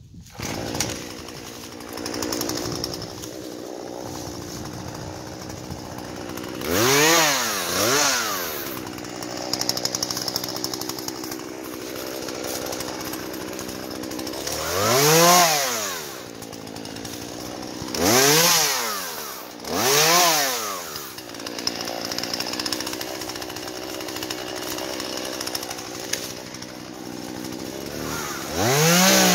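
Two-stroke chainsaw idling, with its throttle blipped briefly about five times, each a quick rise and fall in engine pitch, then revved up and held high near the end.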